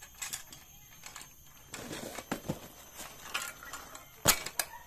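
Metal clicks and clanks of a manual hand winch being handled, with cardboard packaging rustling; a single sharp knock about four seconds in is the loudest sound.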